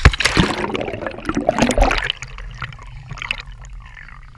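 Pool water splashing and sloshing around a GoPro held at the water's surface. It is loudest for the first two seconds, then settles into quieter water noise as the camera rides at the waterline.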